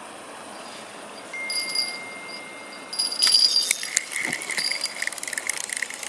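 Small bite bell on the tip of a bottom fishing rod jingling, in light tinkles from about a second in and a busy, rattling jangle from about three seconds: a fish is biting.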